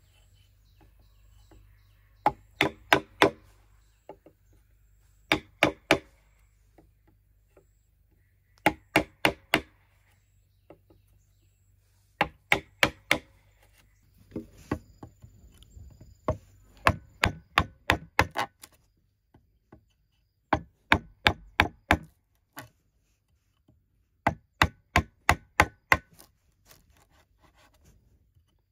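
Bamboo being chopped with a blade: quick bursts of four to seven sharp, ringing blows, each burst followed by a pause of a second or two.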